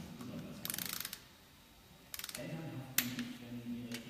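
Ratchet torque wrench clicking in quick runs as it turns the cylinder-head stud nuts of a VR6 engine on the first 40 Nm tightening pass, with one sharp louder click about three seconds in.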